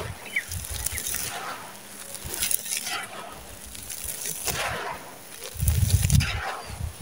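Hands scooping dry, gritty red dirt and small stones and letting it pour and crumble through the fingers, giving crunchy, grainy rustling and trickling. Heavier low thuds come near the end as the hands press into the pile.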